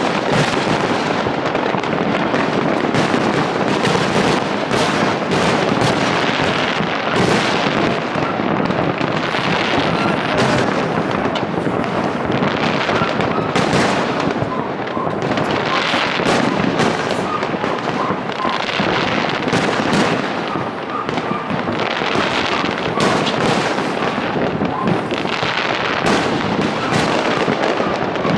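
Fireworks display in full barrage: bangs and crackles overlapping so densely that there is hardly a gap between them.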